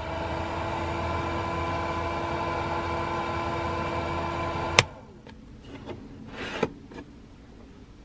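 The 1993 Hymer S660's extractor fan motor humming steadily, being tested after its stuck vent was cleaned and lubricated. A sharp switch click about five seconds in cuts it off, followed by a few faint clicks of the control panel switches.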